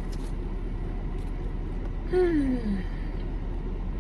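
Steady low rumble inside a car's cabin, the kind an idling engine or running climate fan makes. About two seconds in comes one short, falling, hummed 'mmm' from the person eating.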